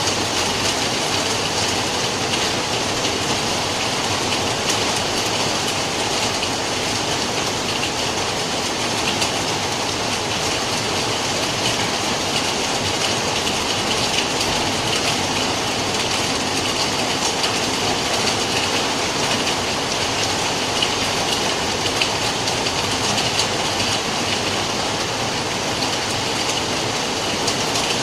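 Rain falling steadily: a dense, even hiss that holds at one level.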